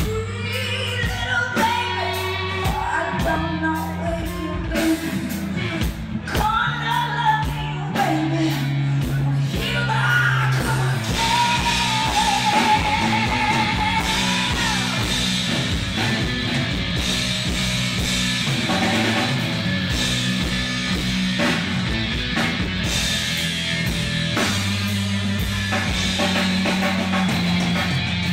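Live rock band: a woman singing with long slides in pitch over electric guitar and drums for roughly the first ten seconds, then the band plays on.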